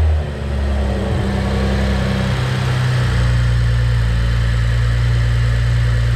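BMW 535i's turbocharged inline-six idling just after being started, settling from a faster start-up idle into a steady idle about three seconds in. It runs evenly after repair of its rough-running, shaking fault and is judged good.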